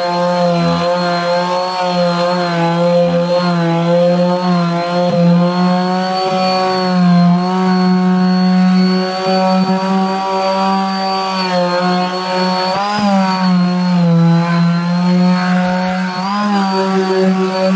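Electric random orbital sander running on a painted door panel, sanding off paint. It gives a steady motor whine whose pitch wavers slightly.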